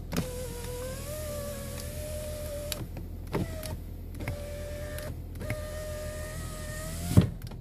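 Toyota Corolla's electric door window motor whining as the glass moves down, in three runs with a click at each stop and restart. A sharp knock near the end as it stops.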